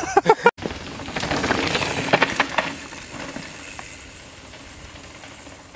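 A last burst of laughter, then a cut. After that a mountain bike rolls past on a dry dirt trail, its tyres crunching over dirt and loose stones with a few rattles. It is loudest about two seconds in and fades as the bike rides away.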